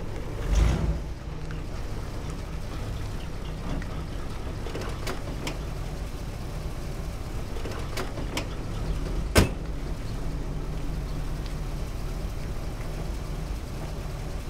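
Car engine running low and steady after a louder swell as it pulls up, with a few light clicks of the car door and one sharp door knock about nine seconds in.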